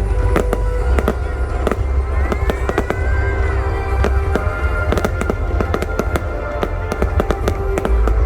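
Aerial fireworks going off in quick succession: many sharp bangs and crackles over a deep, continuous rumble, with music playing alongside.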